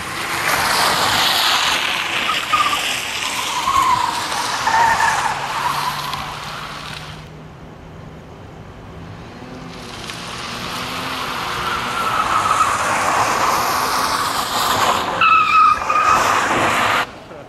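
Mazda MX-6's tyres squealing and skidding on parking-lot asphalt as the car slides through turns. The squeal comes in two long stretches with a lull of about three seconds between them, and a low engine hum carries through the lull. The second stretch ends with a shrill, steady squeal.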